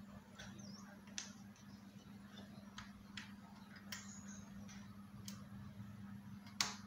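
Faint, irregular clicks and ticks of a screwdriver working the screws out of the end cap of an LED tube light, with one sharper click near the end.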